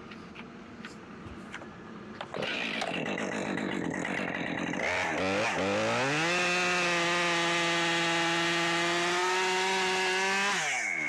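A chainsaw starts running about two seconds in and revs up. It holds a steady full-throttle pitch for about four seconds as it cuts into a fallen sycamore, then drops back near the end.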